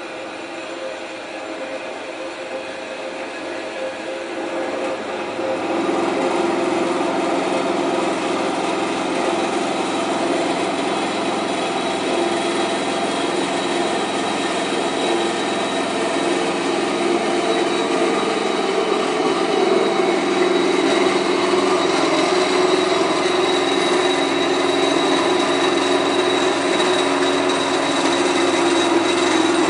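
A 7-inch horizontal metal-cutting band saw running, its blade sawing through a rectangular steel tube. A steady mechanical sound, which grows louder about six seconds in and then holds steady.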